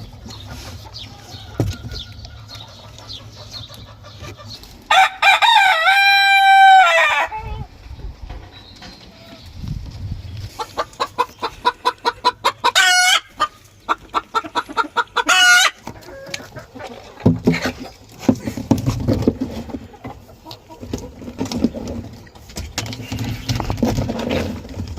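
A rooster crows once, a long, loud call about five seconds in. Chickens follow with quick runs of clucking and short cackling cries.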